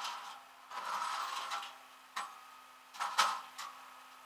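Several short bursts of mechanical clicking and rattling, with a sharp single click about two seconds in and the loudest burst about three seconds in, over a faint steady hum.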